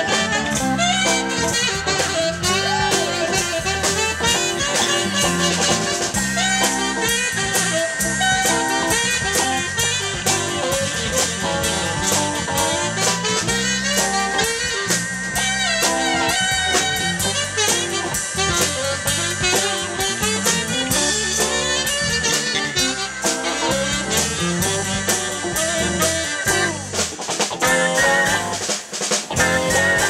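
Live band playing an instrumental blues-jazz groove: saxophone over drum kit, bass, electric guitar and keyboard. The band changes about 27 seconds in, with a brief drop in loudness a little later.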